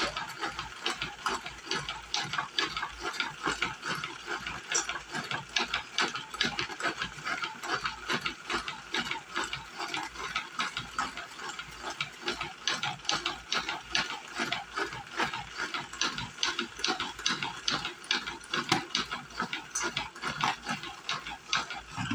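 Salad spinner being turned, its ratchet mechanism clicking rapidly and without a break as it spins water off freshly washed food.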